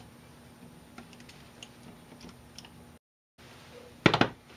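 Faint light ticks over a low steady hum, then a short cluster of sharp clicks and knocks about four seconds in as small metal parts of a mini milling machine kit are handled and set down on a wooden board.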